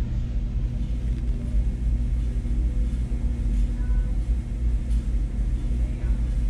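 A steady low rumble with a constant mechanical hum, as from running machinery.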